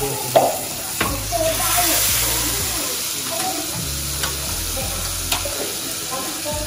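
Masala-marinated fish pieces sizzling as they fry in oil in a nonstick frying pan, with a few sharp clicks and knocks.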